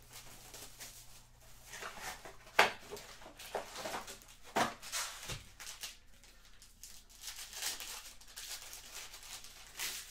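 Foil trading-card pack wrappers crinkling and tearing as packs are ripped open by hand, in irregular rustles with a sharp snap about two and a half seconds in.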